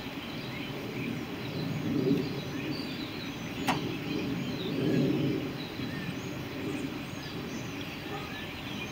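Outdoor background noise with faint bird chirps throughout. A low rumble swells twice, and a single sharp click comes a little under four seconds in.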